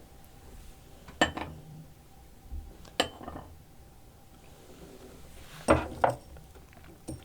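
Eating utensils clinking against dishes during a meal of soy-sauce marinated crab, five sharp separate clinks spread over several seconds.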